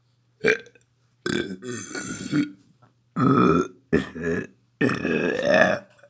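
A person burping several times in a row: a brief sound about half a second in, then a long burp, two shorter ones close together, and a last long burp that rises in pitch near its end.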